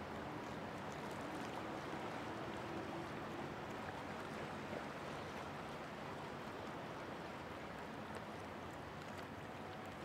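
Faint steady wash of churned water with a low machinery hum from the Great Lakes steamer Philip R. Clarke as it moves away up the canal; the hum fades after the first few seconds.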